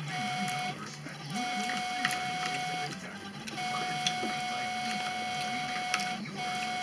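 Steady machine-like hum and hiss with a constant high whine and a mid-pitched tone, cutting out briefly three times.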